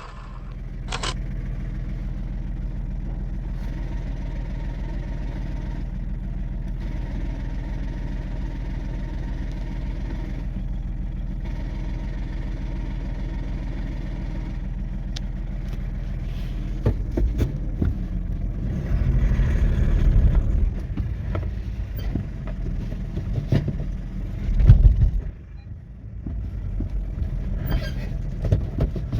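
Car engine idling steadily. About halfway through, the sound grows louder and uneven in several swells, the loudest a few seconds before the end, then dips briefly.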